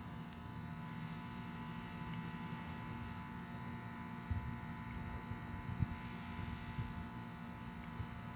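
Steady electrical hum with several faint fixed tones, and a few soft low thumps about halfway through.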